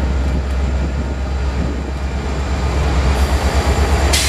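Union Pacific diesel-electric freight locomotives passing close by at speed: a deep steady engine rumble mixed with the noise of wheels on rail, and a brief hiss about four seconds in.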